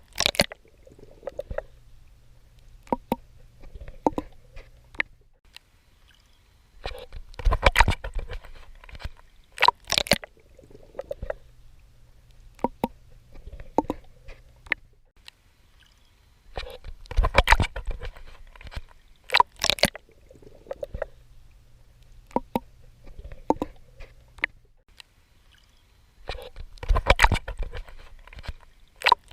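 Water splashing and sloshing from a swimmer's strokes, in a cluster of loud splashes about every ten seconds, with quieter gurgling between them.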